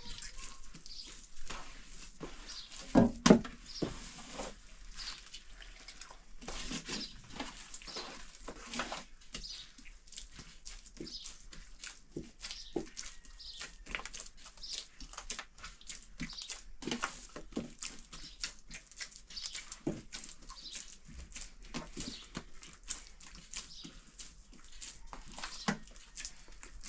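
Bread dough being kneaded by hand in a metal basin: irregular soft squishes and slaps, with a couple of louder thumps about three seconds in.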